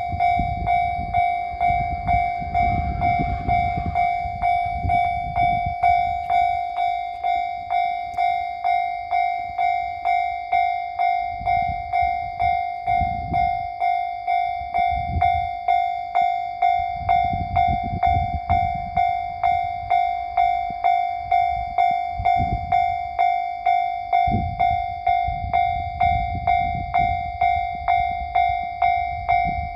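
Japanese level-crossing warning bell ringing: an electronic bell tone struck over and over in a steady, even rhythm. A low rumble swells and fades several times beneath it.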